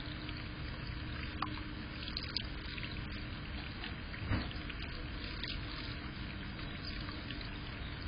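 Small bird-bath fountain spout pouring a steady stream of water into a plastic tub, with a few faint splashes and one short thump about four seconds in.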